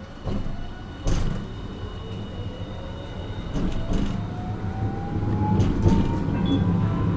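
Hiroshima Electric Railway 1000-series (Green Mover LEX) low-floor tram pulling away from a stop: two knocks in the first second, then the traction motor whine rises steadily in pitch as it accelerates, over a growing rumble of wheels on the rails.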